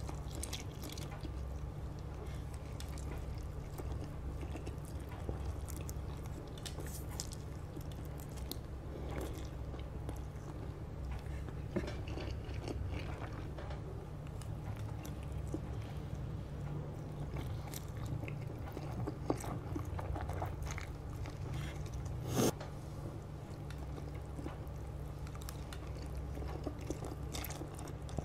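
A person slurping and chewing spicy Samyang instant noodles eaten with chopsticks, close to the microphone, with scattered small clicks and one sharper click about four-fifths of the way through. A steady low hum runs underneath.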